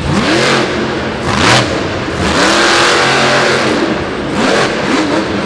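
Monster Mutt Dalmatian monster truck's supercharged V8 engine revving hard, its pitch climbing and falling about four times as the throttle is opened and closed.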